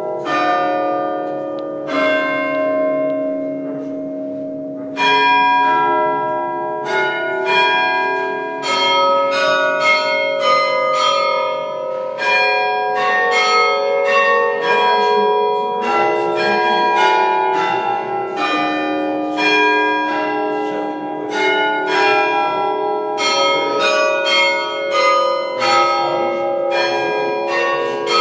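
Church bells ringing, many bells of different pitches struck in quick succession, each one's ring lingering under the next. Sparse for the first few seconds, then several strikes a second.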